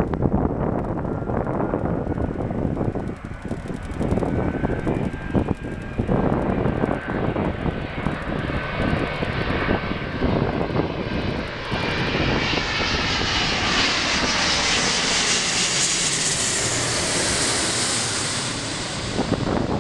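Boeing 777-200 airliner's jet engines on final approach, getting louder as it comes in and passes overhead. The sound swells into a loud high rushing whine that peaks near the end. Wind rumbles on the microphone in the first half.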